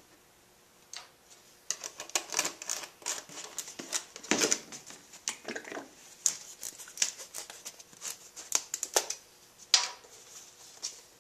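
Hands handling small plastic parts: an irregular run of clicks and rattles, ending with one sharp click near the end.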